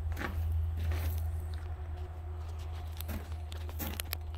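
A few light footsteps crunching on a gravel floor, with scattered small clicks, over a steady low hum.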